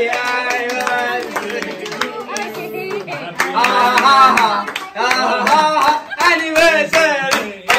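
A group of people clapping their hands, with several voices singing and talking over the claps.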